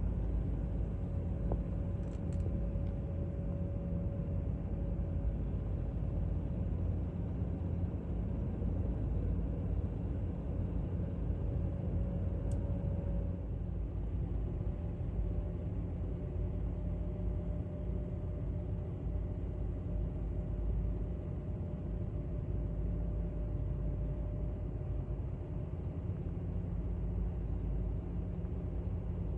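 Aircraft engine noise from a distance: a steady low rumble with a faint steady hum on top.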